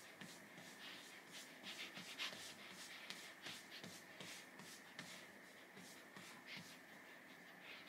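Faint, quick sniffing at a baby's neck: short irregular sniffs, several a second, over a faint steady high hum.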